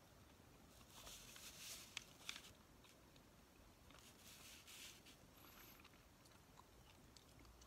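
Faint scratchy strokes of a felt-tip Sharpie marker on a paper grocery flyer: two short passes, about a second in and about four seconds in, with a few small sharp clicks in between.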